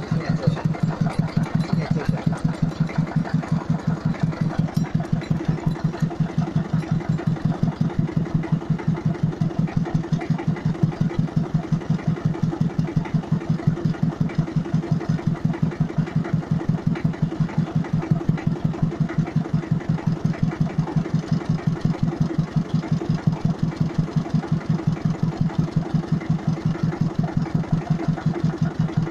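Small Hebei tractor's engine idling steadily with an even, rapid beat.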